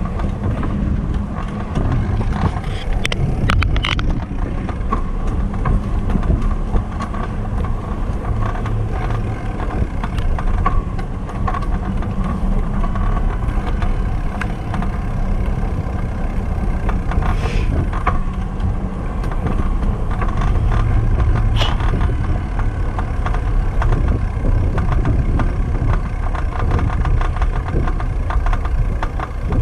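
Steady low rumble of wind and rolling noise from a bicycle ride on a concrete path, picked up by a camera mounted on the moving bike, with a few brief clicks scattered through.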